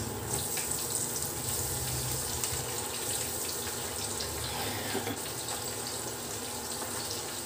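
Battered chicken pieces deep-frying in a pot of hot oil: a steady sizzle with fine crackles. A low hum runs underneath.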